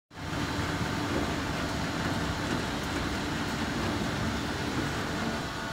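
Okuma MA-50HA horizontal machining center running, a steady mechanical hum and whir with a low rumble.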